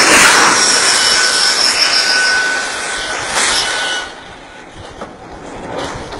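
Oil well blowing out: high-pressure gas jetting from the wellhead on the drilling rig, a loud steady rushing hiss with faint whistling tones in it. It drops sharply in loudness about two-thirds of the way through.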